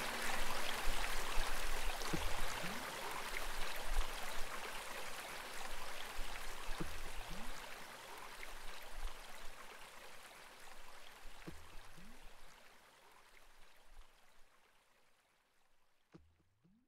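Babbling brook water, a steady rush that fades gradually to near silence by the end. A low rising swoop repeats about every four to five seconds over it, part of the water-sound manipulation.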